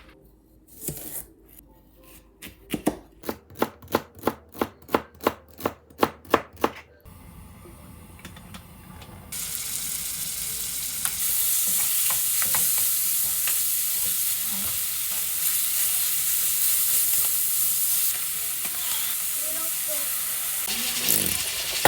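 Knife chopping on a cutting board, about a dozen even strokes roughly three a second, then food starts sizzling in a hot frying pan a couple of seconds later and keeps up a steady hiss with a few small clicks.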